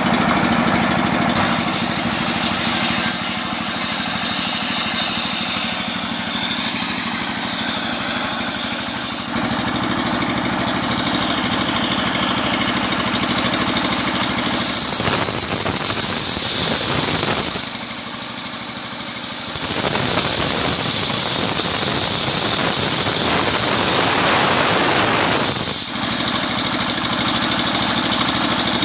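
Engine-driven homemade sawmill running steadily as it saws a coconut palm trunk, with long stretches of added high hiss that come and go.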